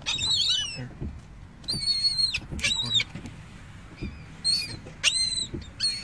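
Gulls calling: a series of short, high-pitched cries, about six of them, some coming in quick pairs.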